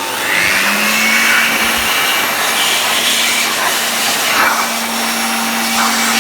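Fakir 1200-watt upright vacuum cleaner motor switched on and running. Its whine rises in pitch as it spins up in the first half-second, then holds steady. The motor is running on test after its burnt, broken black lead was cut out and spliced.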